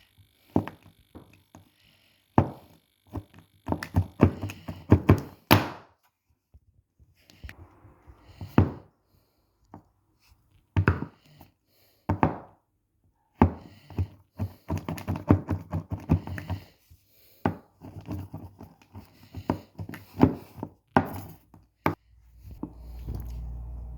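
Knife cutting through modelling dough onto a hard board: a long, irregular run of thunks and taps, some in quick clusters. A low rumble comes in near the end.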